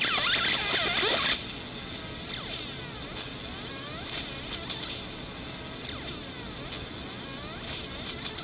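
Laser engraver's stepper motors whirring in quick rising and falling chirps as the head sweeps back and forth while etching. A loud steady hiss over them cuts off suddenly about a second and a half in.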